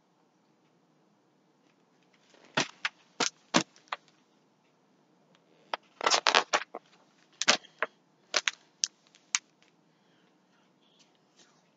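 About a dozen sharp knocks and clicks in two clusters, a few short ones and then a longer run, from a hardcover picture book being handled and set down.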